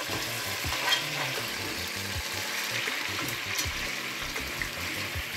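Pork sizzling as it fries in hot lard in a pot, with a steady sizzle while a spatula turns the pieces, and a few short knocks of the spatula against the pot.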